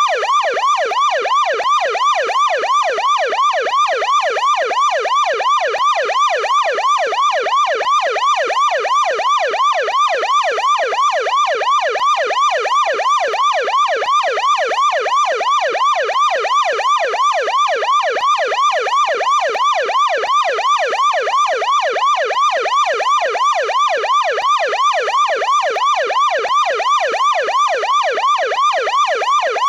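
American police car siren on the yelp setting, a deep-toned yelp. It sweeps rapidly up and down in pitch, about three times a second, steady and unbroken.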